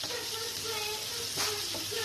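Spring onions, ginger and onion sizzling steadily as they are stir-fried in a hot pan, with one clack of the utensil against the pan about a second and a half in.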